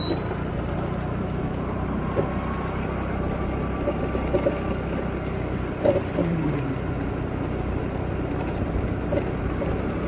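Steady engine drone of a moving two-wheeler with road and wind noise, holding at an even level throughout.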